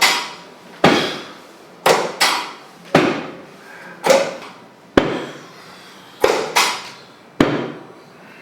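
A series of sharp percussive knocks from the chiropractic adjustment, about one a second, several in quick pairs, each ringing briefly before it fades.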